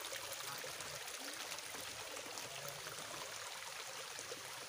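Shallow forest stream running over rocks: a steady rush of water.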